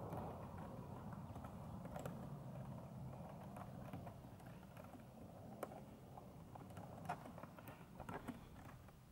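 A few light, scattered clicks of typing on a keyboard over a faint steady background hum, with the clicks coming more often near the end.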